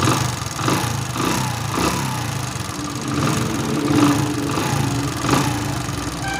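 Hero HF Deluxe's single-cylinder four-stroke engine idling, heard up close at the cylinder head, with a fast ticking clatter and a few louder knocks. The clatter is a very irritating tappet noise, which the mechanic suspects comes from loose tappets (too much valve clearance).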